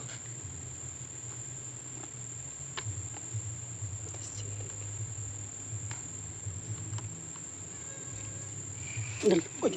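Insects droning, a steady high-pitched tone that does not change. A low hum runs underneath, with a few faint clicks.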